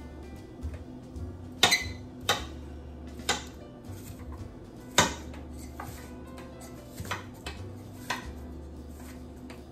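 Chef's knife chopping onion directly on a hard countertop with no cutting board: about eight sharp, irregular knocks of the blade on the counter, the loudest about halfway through.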